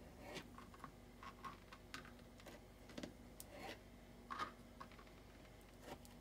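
Faint, irregular taps and scrapes of a kitchen knife against a plastic cutting board as medjool dates are sliced.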